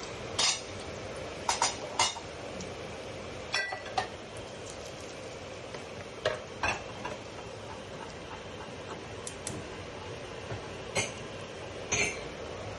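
Ripe plantain slices frying in hot oil with a steady sizzle, broken by about ten sharp clinks of a utensil against the pan at irregular moments.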